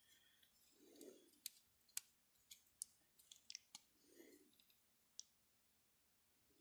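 Faint, sharp clicks of plastic Lego bricks being handled and pressed onto a small model car, about ten separate ticks over a few seconds. Two soft low sounds come in among them, about a second in and again about four seconds in.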